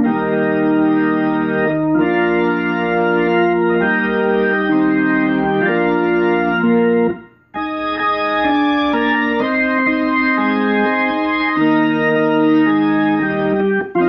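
Freshly rebuilt 1956 Hammond C3 tonewheel organ playing sustained chords through a 1956 Leslie 21H rotating-speaker cabinet. The chords change every second or two, with a brief break about seven seconds in.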